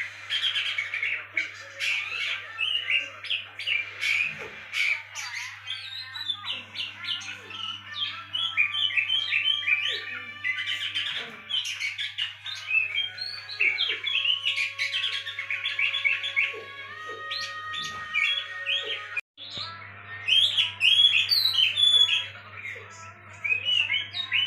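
Oriental magpie-robin (kacer) singing a fast, varied stream of chirps and whistles, played as a lure recording to get a caged kacer to sing, over a steady low hum; the sound breaks off for a moment about nineteen seconds in.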